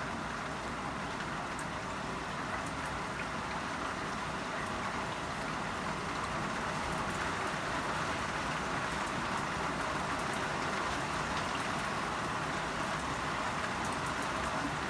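Heavy rain pouring down steadily: an even hiss with scattered drop ticks, growing slightly louder about halfway through.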